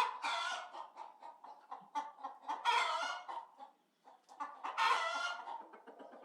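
Chickens clucking in quick short notes, broken by three longer drawn-out calls: one at the start, one about two and a half seconds in, one near the end.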